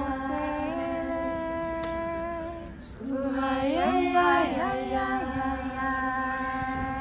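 Two women's voices singing a slow unaccompanied chant in long held notes, a little apart in pitch. About three seconds in they break off briefly, then come back with sliding notes before holding steady again.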